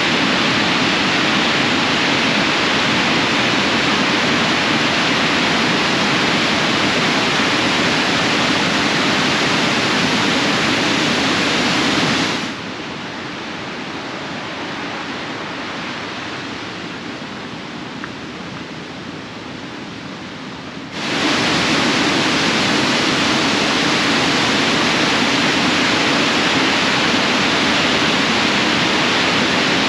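Waterfall at Aysgarth Falls in spate after heavy rain: a loud, steady rush of water. About twelve seconds in it drops to a quieter, duller rush for some eight seconds, then returns to full strength.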